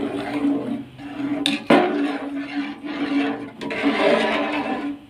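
Metal ladle stirring rice in water in an aluminium pot: the water swishes and sloshes, with two sharp knocks of the ladle against the pot about one and a half seconds in.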